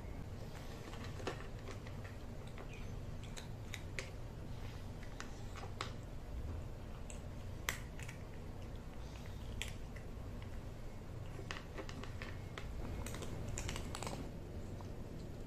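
Cat eating from a plastic bowl: irregular small clicks and crunches of chewing, over a low steady background rumble.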